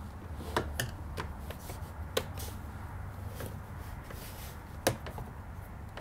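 Screwdriver turning out screws from the plastic steering column shroud: scattered light clicks and taps of the tool against the screw heads and plastic, with a sharper click about five seconds in.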